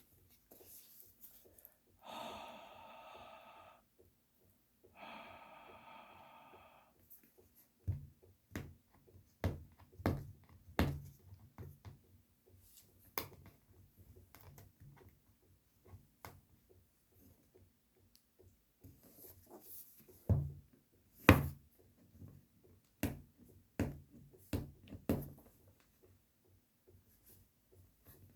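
Handling noises while unboxing a smartphone: two longer sounds of about two seconds each near the start, then a scattered series of light clicks and knocks of the box and phone being handled.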